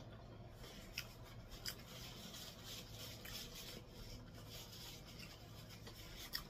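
Faint rubbing and rustling of a paper napkin as hands and mouth are wiped, with a few small clicks.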